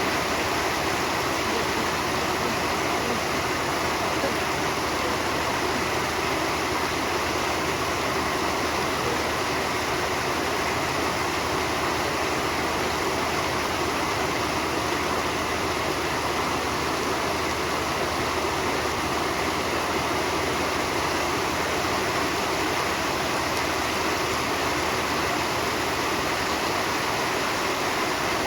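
Steady heavy rain drumming on a corrugated iron roof, a dense even hiss of drops with no changes in level.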